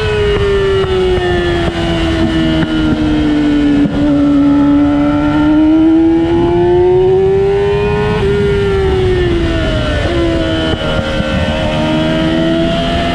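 Engine of a vehicle lapping a race track, heard onboard over wind noise. Its pitch sinks over the first few seconds, climbs steadily until about eight seconds in, then drops, with further sudden steps in pitch about ten seconds in and near the end.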